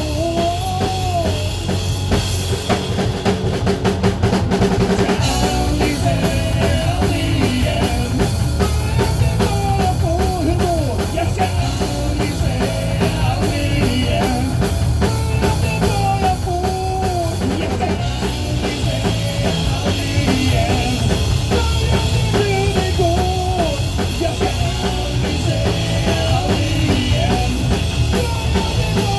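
Rock music: a band with drum kit and bass playing steadily, with a melody line gliding up and down over it.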